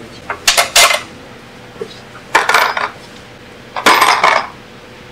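Loose metal parts and hand tools clinking and clattering in three short bursts while a DeWalt 788 scroll saw is taken apart by hand.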